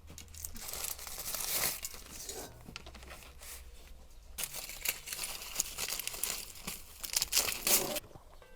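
Crisp food being torn apart and crunched, a crackling, crinkling noise in two stretches: about the first two seconds, then from about four and a half seconds to eight.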